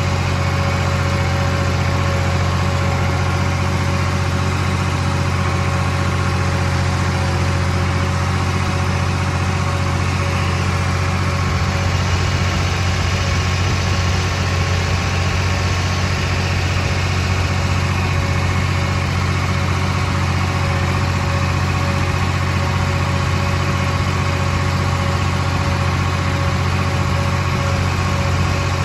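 Farm tractor's diesel engine running at a steady speed, heard close up from the driver's seat; the note holds even with no change in revs.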